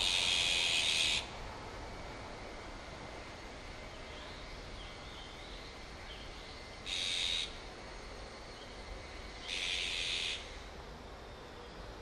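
Azure-winged magpies giving three harsh, rasping calls: a long one at the start, a short one about seven seconds in and another near ten seconds, with faint chirps between. The adults are agitated over a chick that has apparently fallen into the shrubbery.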